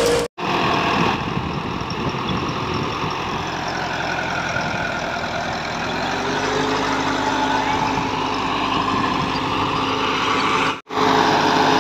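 Sonalika Tiger 75 CRDI tractor's diesel engine running steadily while its rotavator tills the soil. The sound cuts out completely for an instant twice, just after the start and about a second before the end.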